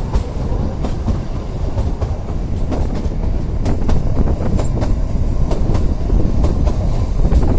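Kalka–Shimla narrow-gauge toy train running, a steady low rumble with many irregular clicks of the wheels passing over the rail joints.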